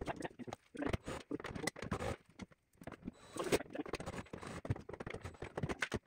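Hard plastic refrigerator liner parts and covers knocking, clicking and scraping as they are handled and fitted back into place, an irregular clatter broken by short pauses.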